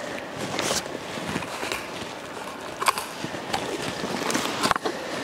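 Footsteps and shifting boots on loose rocky gravel: stones crunching and clacking together in irregular knocks, roughly one a second.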